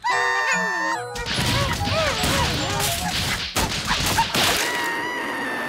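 Cartoon fight sound effects: a run of crashes and whacks as a brawl shakes a house, over music. A high, steady whistle slides slightly down near the end.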